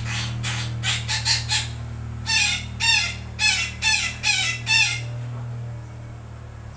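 Sumatran betet parakeet giving a run of short, harsh calls. First comes a quick cluster, then about a second later six louder calls at roughly two a second. The calls stop about five seconds in.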